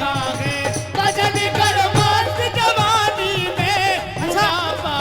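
Live devotional bhajan music: a wavering melody with vibrato over held accompanying tones, with tabla-style hand drums keeping the rhythm underneath.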